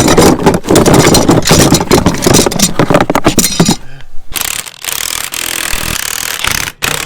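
Loud rattling and scraping for about four seconds, then a short pause and a steady hiss: bolts on a center-pivot irrigation system's leaking packing being tightened.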